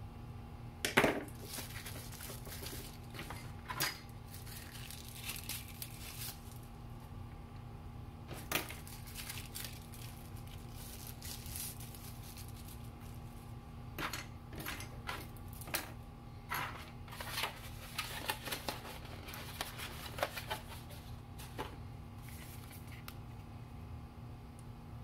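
Toothbrush packaging being handled: a plastic wrapper crinkling and tearing, with scattered clicks and taps. The loudest is a sharp knock about a second in. A steady low hum runs underneath.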